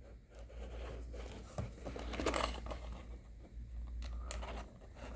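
Plastic-and-cardboard toy packaging being handled and turned over: faint crinkling and rustling with a few light taps and clicks.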